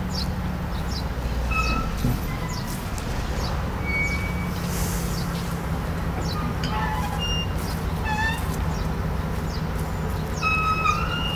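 Small birds chirping and whistling in short repeated calls, with a quick run of notes about eight seconds in, over a steady low engine hum.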